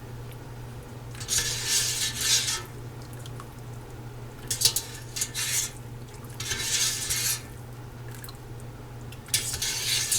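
A utensil scraping and clinking against a pot while it digs through chicken broth for peppercorns and bones, in four short bouts.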